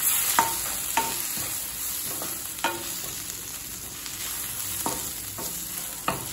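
Chopped onion, tomato and freshly added spice powders sizzling in oil in a kadai while a wooden spatula stirs them, with a few sharp knocks and scrapes of the spatula against the pan over a steady frying hiss.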